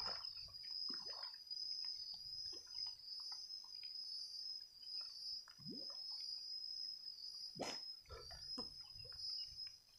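Steady high-pitched drone of a calling animal chorus around a flooded pond, with scattered splashes and water sloshing as a man ducked under the water to grab a cast net resurfaces about eight seconds in.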